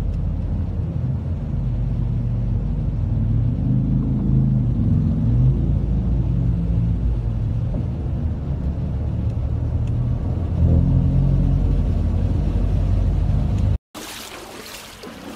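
A motor vehicle's engine running with a steady low rumble as it moves through a flooded street. It cuts off abruptly near the end, leaving a quieter hiss.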